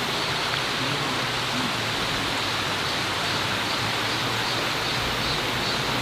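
Mountain valley stream running: a steady rush of flowing water.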